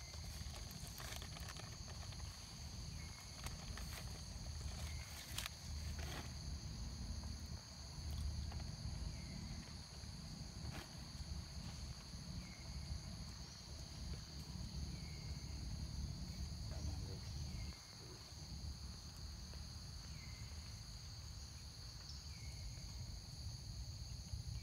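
Steady high-pitched insect chorus, with a low rumble underneath and faint short chirps now and then.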